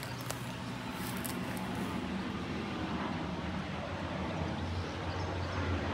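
Aircraft passing overhead: a low, steady engine drone slowly growing louder. A few rustles of grass in the first two seconds.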